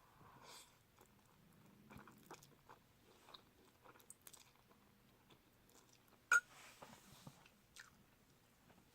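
Close, faint chewing of instant noodles and chewy rice cakes, with small wet mouth clicks throughout. A single sharp click stands out a little after six seconds.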